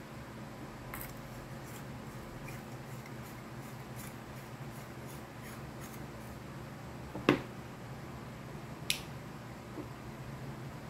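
Faint plastic ticks and rubbing as an LED bulb is screwed into a plastic lamp-holder, with a sharp click about seven seconds in and a smaller one near nine seconds as it seats, over a steady low hum.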